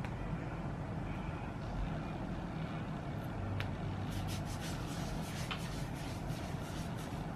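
Wrists rubbed together after applying perfume, making a run of short skin-on-skin rasps in the second half, over a steady low background rumble.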